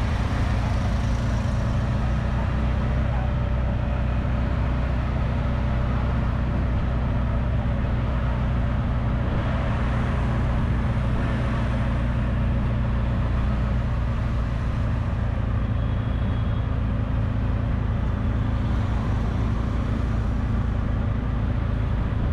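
Auto rickshaw engine running steadily at a constant speed, heard from the passenger seat of the open cabin, with road and traffic noise.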